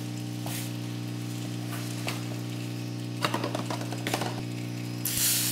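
Used engine oil draining from the car into a drain pan: a steady, even hiss-like trickle over a steady low hum. A few light clicks come through it, and a short, louder rustle sounds near the end.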